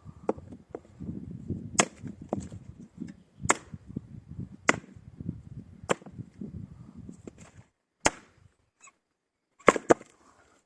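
Fiskars Norden axe chopping wood: sharp single blows a second or two apart over low rustling, a short lull, then two quick blows near the end.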